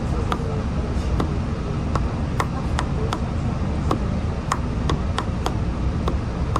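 Inside a standing city bus: its engine idling with a steady low rumble, with irregular sharp clicks and ticks every half second or so.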